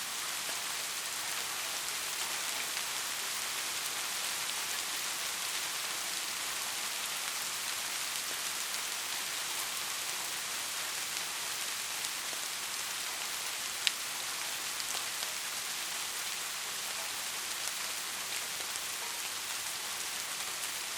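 Steady rain: a dense, even hiss with fine scattered drop ticks. One sharper single tick stands out about two-thirds of the way through.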